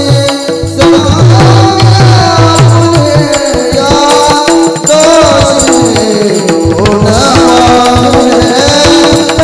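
Pakhawaj and mridang, two-headed barrel drums, played in a steady rhythm under a group of men singing a devotional song in unison, amplified through a PA.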